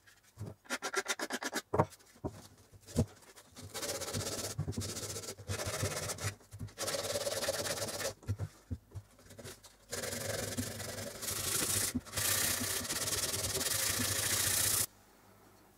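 Sandpaper rubbed by hand over a wooden knife block. Short quick strokes come first, then longer stretches of steady scraping with brief pauses, stopping suddenly near the end.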